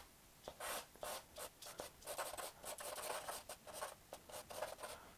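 Small stick of charcoal scratching over drawing paper in quick shading strokes, about three a second, starting about half a second in.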